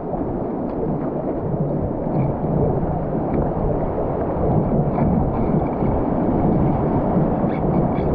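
Steady rushing of whitewater river rapids, mixed with wind buffeting the microphone.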